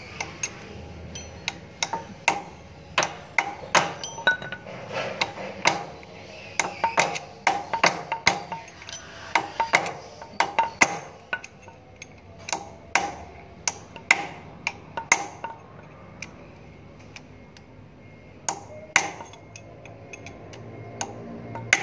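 Hammer striking a steel punch held against the drive-wheel differential gear of a Nichiyu FBR18 reach truck: a long run of sharp metallic strikes at an uneven pace. They thin out after about fifteen seconds, with a few more strikes near the end.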